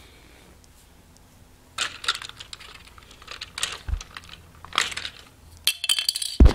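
Small plastic toy monorail parts being handled: several bursts of clicking and crackling rattles, starting about two seconds in, with a thump near the end.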